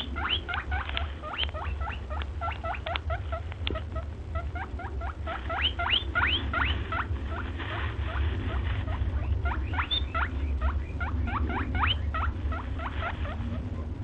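Small birds chirping in quick succession: many short, rising chirps, several a second and overlapping, with a steady low rumble underneath.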